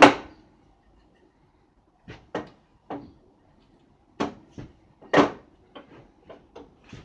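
A series of sharp knocks and clacks from pieces of wood and tools being handled and set down. The loudest comes at the start and another about five seconds in, with lighter ticks near the end. No saw is running.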